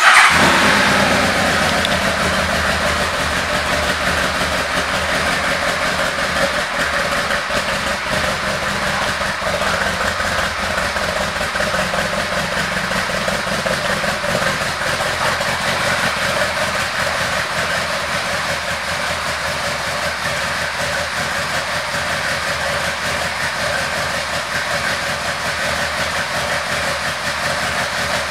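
2007 Yamaha Royal Star Tour Deluxe's air-cooled V4 engine with an aftermarket exhaust, catching right at the start, loudest in the first moments with its pitch dropping, then settling into a steady idle.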